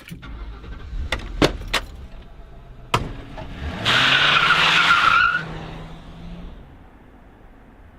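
Car pulling away fast: a few clicks and a knock, then the engine revs up, rising in pitch, as the tires squeal for about a second and a half, the loudest part. The engine then runs on more quietly and fades.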